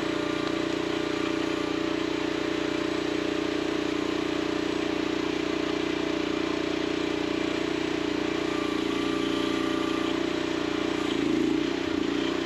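Mini excavator engine running steadily. Near the end its note wavers and briefly gets louder.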